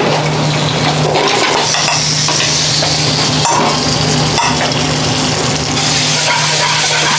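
Peppers, onions and tomatoes frying in a metal karai pan over a gas burner, with a ladle stirring and scraping. Two sharp metal knocks come about halfway through, against a steady low hum.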